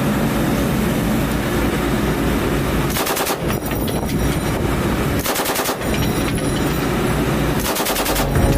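M240 7.62 mm machine gun firing three short bursts, each about half a second long and about two seconds apart, over a steady low rumble.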